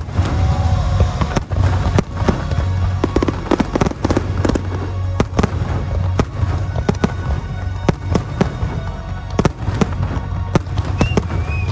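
Fireworks going off: an irregular string of sharp cracks and bangs, about two a second.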